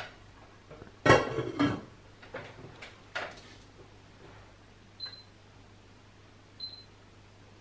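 Metal saucepan lid clattering as it is picked up and set onto a pot, about a second in, with a brief ring. A few lighter knocks follow, then two small metallic clinks of cookware.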